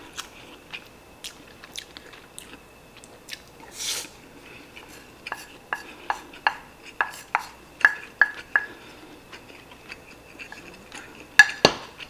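Wooden spoon clicking and scraping against a ceramic plate while scooping fried rice: a run of sharp taps, about three a second, in the middle, and two louder clinks near the end.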